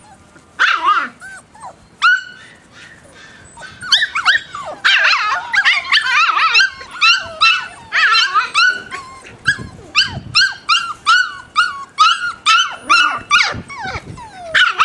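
Welsh terrier puppies yipping and barking in high voices as they play, a few yips at first and then a quick run of them from about four seconds in, two or three a second.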